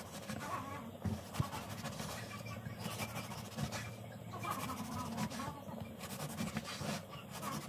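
A long kitchen knife sawing through a baked sponge cake, with a few light knocks of the blade against a wooden cutting board about a second in.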